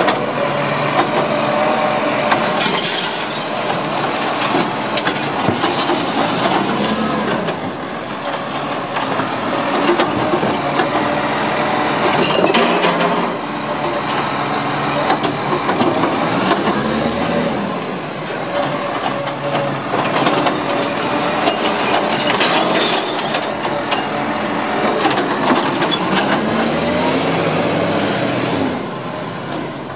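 Side-loading recycling truck working a street of wheelie bins: the engine revs up and falls back as the hydraulic lifting arm raises, tips and lowers each bin, with a steady high hydraulic whine. The cycle repeats about every ten seconds, three times, each time with a short hiss of the air brakes as the truck stops and moves on.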